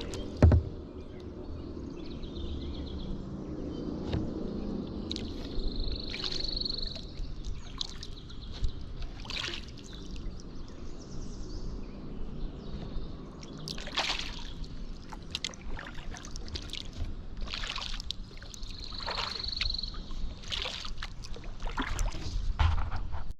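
Kayak paddle strokes: the blades dip and splash in the river, with water dripping off between strokes every couple of seconds. A sharp knock about half a second in, likely the paddle striking the kayak.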